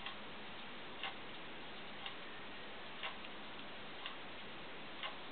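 A clock ticking about once a second over a steady low hiss.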